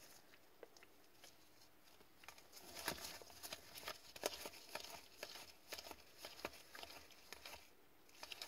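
Quiet, quick clicks and flicks of hockey trading cards being slid one by one off a stack between black-gloved hands, sparse at first and coming thick and fast from about two seconds in.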